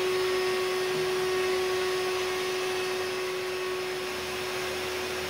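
Bissell Lift-Off cordless stick vacuum running, a steady motor whine over rushing air.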